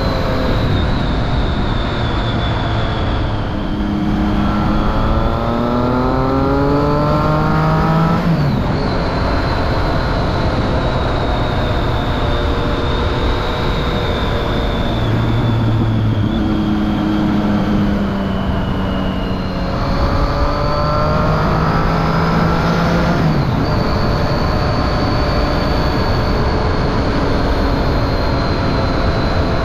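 2013 Triumph Street Triple 675's three-cylinder engine through a Remus Hypercone exhaust with the dB killer fitted, accelerating. The engine pitch rises steadily twice, a few seconds each time, and each rise cuts off sharply, with steadier running in between.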